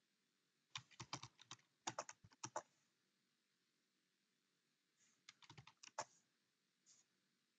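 Faint typing on a computer keyboard: a quick run of keystrokes about a second in, a pause, then another short run about five seconds in.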